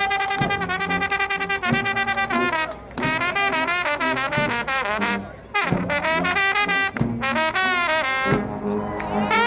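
A trombone choir playing together: loud, many-voiced brass phrases with sliding pitch bends, broken by two brief pauses between phrases.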